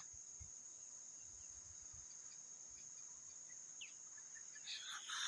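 Steady high-pitched insect drone from the forest, with a few faint low thumps in the first two seconds and a brief louder rustling noise near the end.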